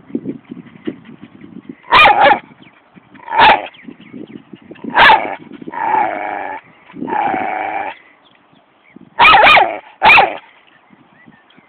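Jack Russell and Staffordshire bull terrier cross dog barking and 'talking': three sharp barks, then two longer drawn-out calls, then two more barks.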